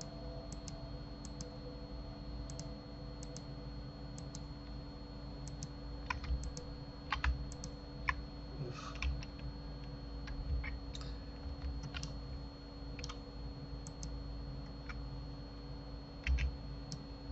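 Sparse clicks of a computer mouse and keyboard at irregular intervals, often in close pairs, over a faint steady electrical hum.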